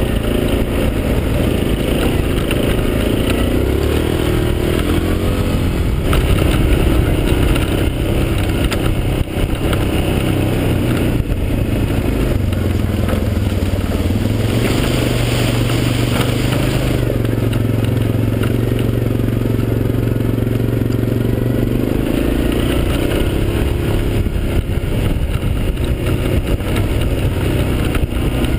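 Yamaha Grizzly 550 quad's single-cylinder engine running on the move over dirt and gravel, its pitch dipping and rising several times as the throttle changes.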